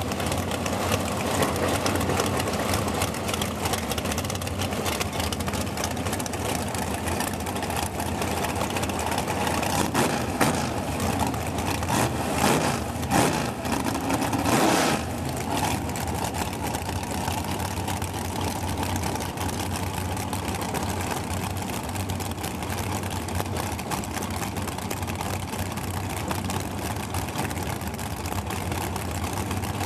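Drag race cars' engines idling at the starting line, a steady low running with a few short revs about ten to fifteen seconds in.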